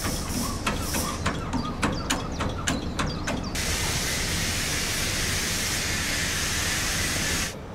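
The hydraulic lifting device of a Wieland VacTrailer S4 raising its collection container into working position. A low hum with scattered clicks is followed, about three and a half seconds in, by a steady hiss that cuts off sharply near the end.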